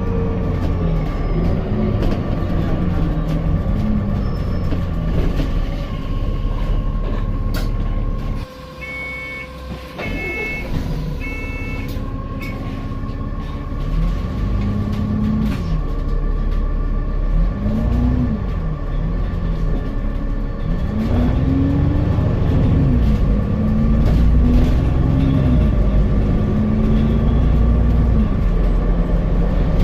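Alexander Dennis Enviro400MMC double-decker bus heard from on board, its engine note rising and falling again and again as it accelerates through the gears and slows, over a steady high whine. About eight and a half seconds in the running noise drops away for a second or so, and three short high beeps sound before it picks up again.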